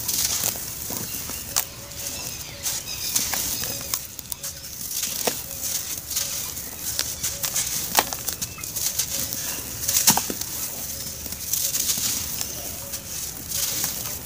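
Dry grey powdery clumps crushed and crumbled by hand, a steady soft crackle and hiss of powder sifting through the fingers, broken by a few sharper crunches as bigger lumps give way.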